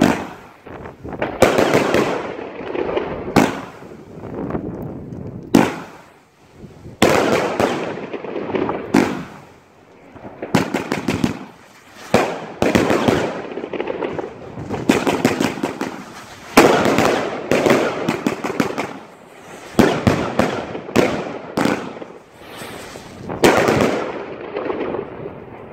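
A 100-shot fan-formation firework cake (Blending Scars) firing in rapid succession: shot after shot of sharp bangs, often in quick clusters, with crackling star bursts. It dies away near the end as the last shots go off.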